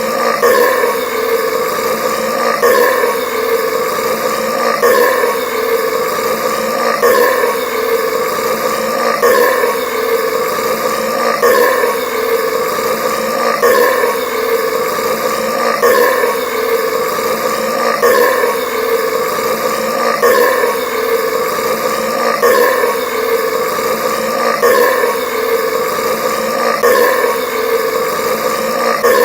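A man's burp, the same one repeated over and over on a loop, a new one starting about every two seconds.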